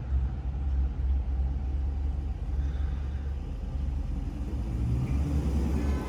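Dodge Charger Scat Pack's 392 HEMI V8 engine and exhaust giving a steady low rumble.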